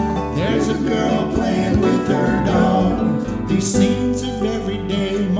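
Music from an acoustic-style song, with gliding melodic lines over a steady low accompaniment.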